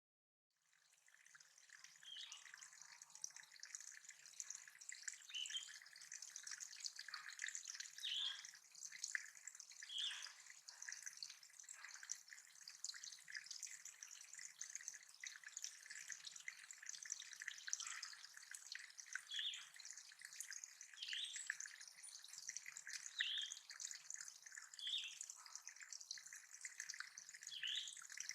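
Water trickling and dripping into a small backyard bird pond, a steady faint splashing. Birds call in the background, with a short note every second or two. The sound fades in just after the start.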